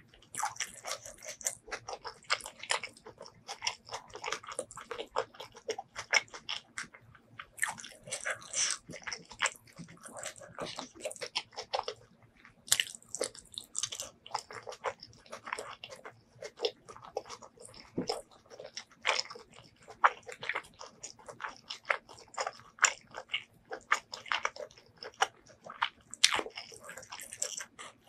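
Close-miked chewing of curry and rice eaten by hand: wet mouth and lip smacks mixed with quick crisp clicks. There are a couple of brief pauses between mouthfuls.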